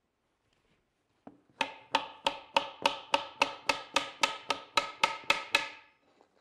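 Mallet tapping a freshly glued dovetailed drawer box together to seat the dovetail joints: about fifteen quick, evenly spaced strikes at roughly three a second, each with a short wooden ring.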